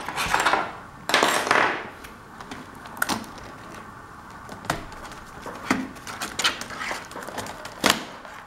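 A laptop keyboard being pried out of a Toshiba Satellite C55's chassis: two short scraping rustles near the start, then scattered sharp clicks and taps as it comes loose.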